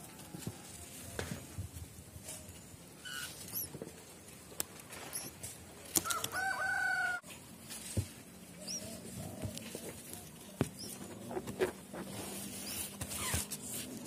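A rooster crows once, a little over a second long, about six seconds in. Around it are scattered clicks and rustles of leaves and twigs being handled close by, and a faint low steady hum in the second half.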